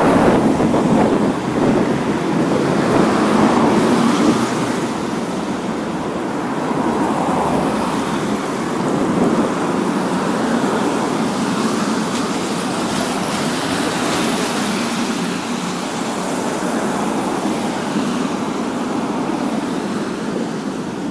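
Road traffic on a wide city street: cars passing one after another on wet asphalt, tyre and engine noise swelling and fading as each goes by, loudest in the first few seconds.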